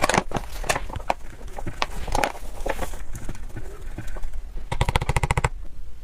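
Close-miked crunching of ice being bitten and chewed: a string of sharp cracks, then a quick, even run of crackles about five seconds in.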